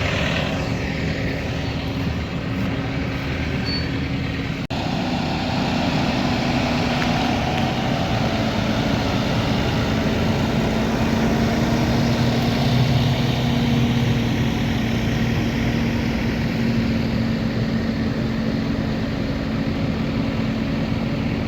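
Farm tractor engine running steadily, its hum growing a little stronger toward the middle.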